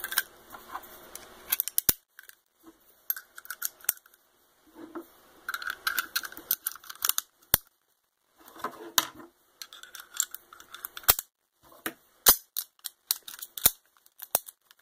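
Steel parts of a Beretta Model 1935 .32 ACP pistol rattling, scraping and clicking together as it is reassembled by hand, with about five sharp metallic clicks as parts snap into place.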